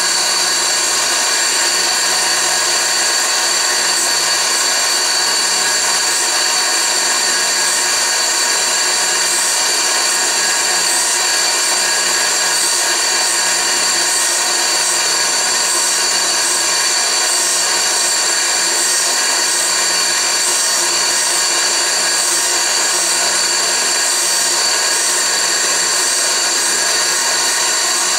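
Lisle No. 91000 drill bit grinder running, its wheel grinding the first cutting lip of a dull twist drill as the bit is fed slowly in: a steady high whine and hiss.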